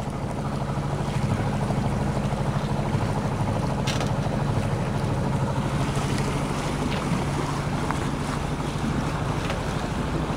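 Westerly Centaur sailing yacht's inboard engine running steadily with the boat under way: a low, even drone, mixed with wind and water noise.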